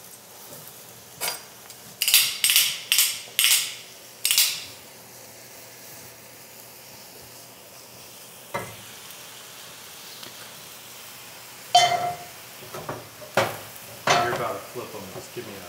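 Oyster mushrooms sizzling in a dry cast-iron skillet as the added water steams off, with several short louder hisses in the first few seconds. Near the end come sharp metal clanks with a brief ring as the heavy pressing pan and tongs knock against the skillet.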